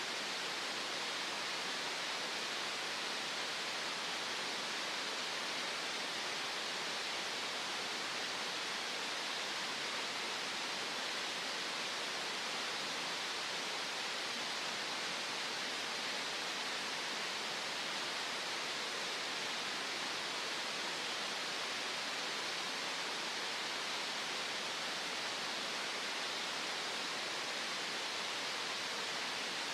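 Green noise: a steady, unchanging hiss of synthetic noise, strongest in the upper middle range with little bass.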